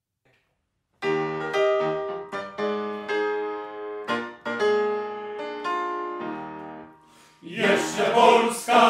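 Background music: a piano comes in about a second in, playing a slow phrase of struck notes and chords that ring out and fade. Near the end a choir starts singing.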